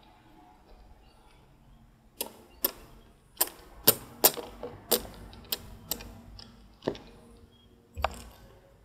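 Backgammon checkers clacking on the board as they are moved: about ten sharp, irregular clacks, starting about two seconds in.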